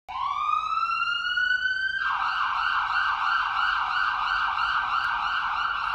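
Electronic siren: a rising wail for about two seconds, then it switches to a fast warble, about three or four cycles a second.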